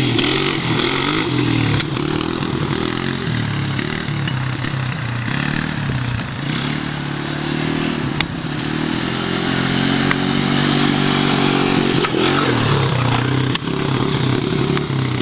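ATV engine running throughout, its pitch dipping and rising again as the throttle is eased and opened, with a few sharp knocks and clatters.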